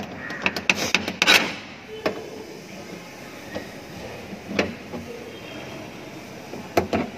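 Adjustable steel wrench clicking and knocking against the pipe nut and service valve of a split air conditioner's outdoor unit as the 3/8-inch pipe connection is loosened, with a quick cluster of sharp clicks about a second in and single knocks later on.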